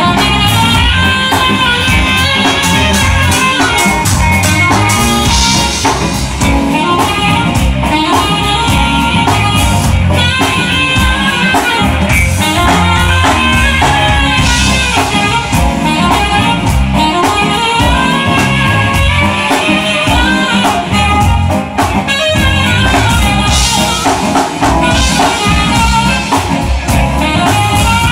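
Live smooth jazz band playing loudly: a saxophone carries the melody over electric guitar, keyboard and drum kit.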